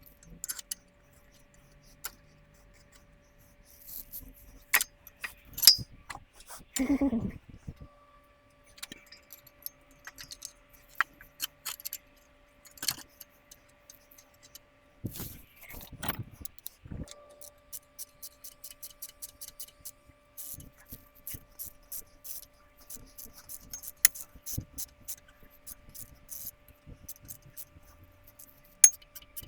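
Irregular metallic clicks, clinks and taps of hand tools and parts being handled while working on an engine, coming faster in the second half, over a faint steady hum.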